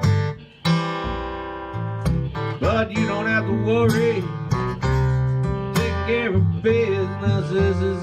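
Live acoustic blues band playing: acoustic guitar strummed over a washtub bass's low notes, with a melody line that bends and wavers above them. The music drops out briefly about half a second in, then picks straight back up.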